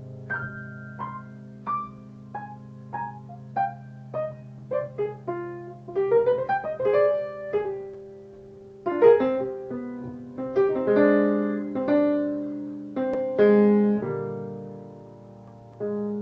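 Solo piano music: a held low chord under single notes struck about every half second, falling step by step at first, then quickening into louder chords about halfway through, with a new low chord struck near the end.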